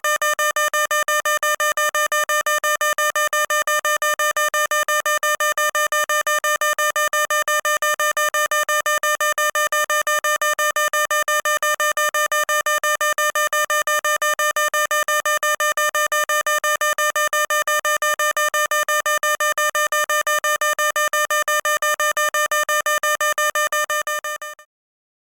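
Electronic fire alarm sounding: one harsh, rapidly pulsing tone with many overtones, held steady, which stops suddenly near the end.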